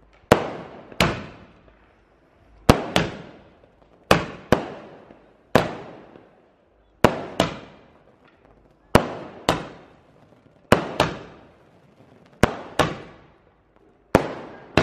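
Multi-shot firework cake firing a steady string of sharp bangs, mostly in pairs, about every one and a half seconds, each crack trailing off in an echo.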